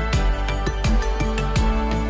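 Instrumental background music with a steady beat of about two low drum hits a second under sustained melodic tones.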